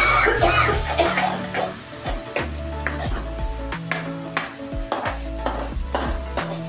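A metal ladle stirring and scraping onion masala frying in oil in a large metal kadai, with repeated sharp knocks of the ladle against the pan over a steady sizzle. Background music plays underneath.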